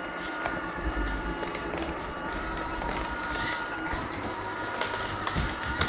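Tamiya Knight Hauler 1/14 RC semi truck running, heard from on board its trailer: a steady whine from its electric motor and gearbox, with the rolling rattle of the wheels and trailer and a few light clicks.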